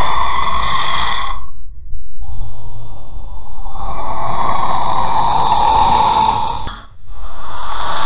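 Breathy, raspy hissing sound effect given as a chameleon's voice, in three long drawn-out hisses with short breaks about two seconds in and about seven seconds in.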